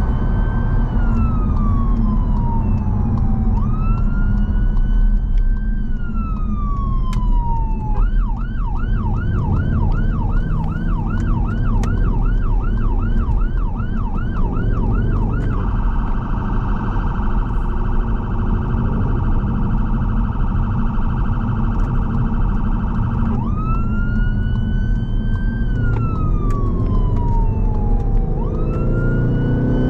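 Emergency response car's siren heard from inside the cabin. It starts on a slow rising-and-falling wail, switches about 8 s in to a fast yelp, then about 15 s in to a rapid, steady-pitched pulsing tone, and goes back to the wail near 23 s. Steady road and engine noise runs underneath, with the engine note rising near the end.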